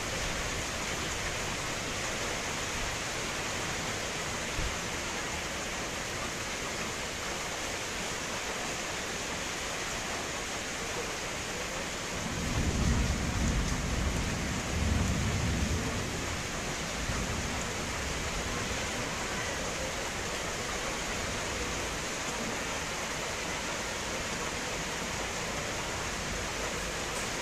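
Steady rain falling. About twelve seconds in, a low rumble of thunder swells twice over some four seconds, then fades back under the rain.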